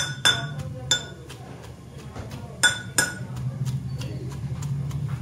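Steel pestle pounding soft boiled chickpeas in a stainless steel mortar: irregular ringing metal clinks each time the pestle hits the bowl, several sharp ones in the first second and again around three seconds in, with lighter taps between.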